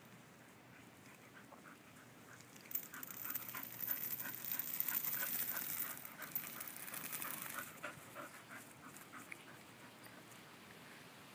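English bull terrier panting hard and fast close to the microphone. The rapid breaths grow loud about three seconds in, last for several seconds, then ease off into softer snuffling.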